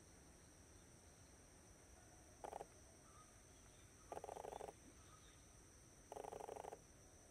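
An animal calling with short, pulsed, croaking calls about half a second long, three of them roughly two seconds apart, the first one shorter. Beneath them is a faint steady high-pitched whine.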